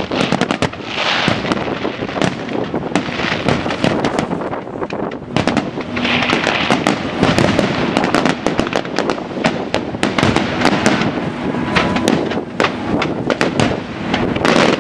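Fireworks going off without a break: a dense, rapid crackle of bangs, with louder clusters about a second in, around six seconds in and near the end.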